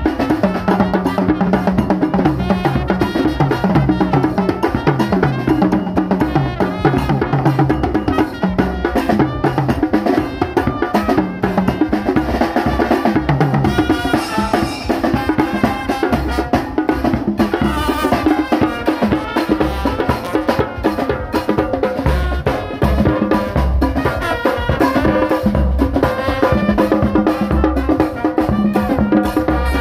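Live brass band playing with a steady beat. Trumpets and trombone play over a big bass drum struck with a mallet, side drums and cymbals.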